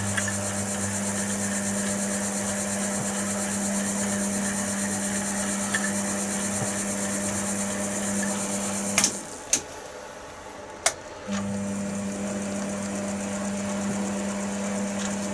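Chester DB10 bench lathe running under power with a steady motor hum while tapping. About nine seconds in the motor stops, with a few sharp clicks over the next two seconds, and it starts up again near the end.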